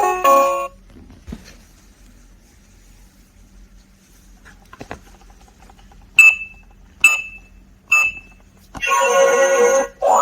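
Toy ATM piggy bank's electronic sounds: a short beeping tune ends, then three single keypad beeps under a second apart, then a loud electronic jingle from the toy near the end.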